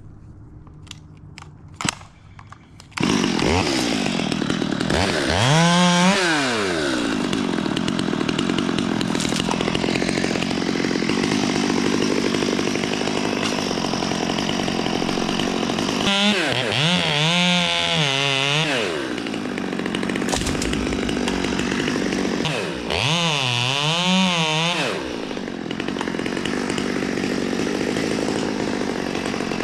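A modified Stihl 020 two-stroke top-handle chainsaw comes in suddenly about three seconds in and runs loud at high revs. Its engine note sags and recovers three times as it cuts into the birch.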